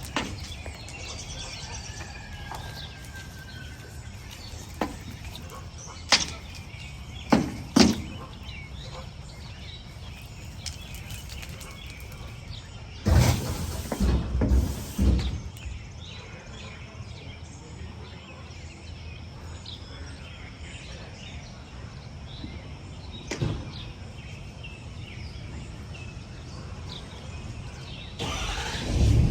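Outdoor background noise with faint bird chirps, broken by several sharp knocks and clunks, the loudest cluster about halfway through.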